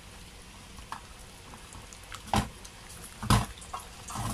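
Hands squishing and mixing raw chicken pieces in a wet egg and corn-flour coating in a ceramic bowl, with a few small clicks and two louder knocks, about two and three seconds in.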